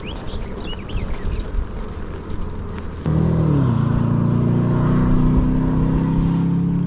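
A motor vehicle's engine close by, starting abruptly about three seconds in with a steady hum whose pitch drops briefly and then holds. Before it there is a rushing noise of wind and road.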